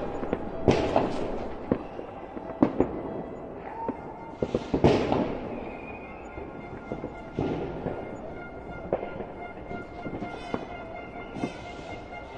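Soccer stadium crowd cheering in rising and falling surges, with many sharp bangs cracking through the noise and steady held tones in the second half.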